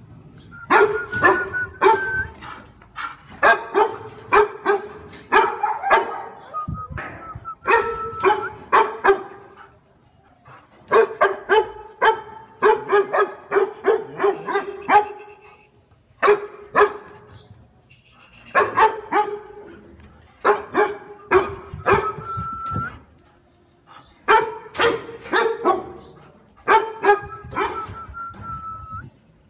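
A large dog barking repeatedly and loudly, in rapid bouts of several barks a second broken by short pauses. A thin, high whine sounds between some of the bouts.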